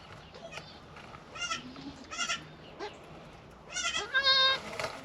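Kiko goats bleating: a few short, high calls, then a louder, longer pair near the end.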